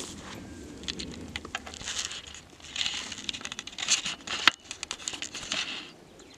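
Footsteps through long grass and undergrowth: irregular rustling and crackling of stems and leaves, with a few sharp snaps.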